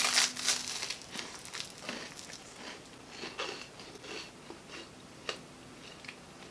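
Toast spread with Vegemite being bitten and chewed, the toasted bread crunching. The loudest crunch comes right at the start, then quieter, irregular crunching and mouth sounds follow.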